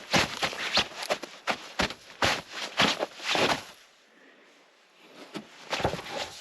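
Snow crunching in a quick series of short, noisy strokes, with a pause of about a second after the middle before the strokes start again.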